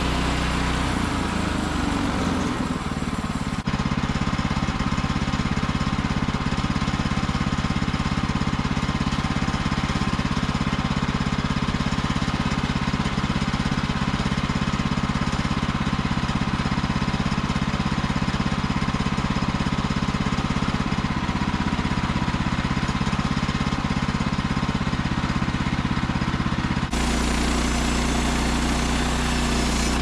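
Portable band sawmill's gasoline engine running steadily while the blade cuts through a frozen red oak log. The engine note shifts during the first few seconds and changes abruptly near the end.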